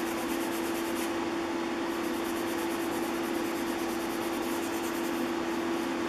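Extra-fine 3/0 steel wool rubbed over a bare hardwood plane tote, a steady scratchy rubbing, over a steady low hum.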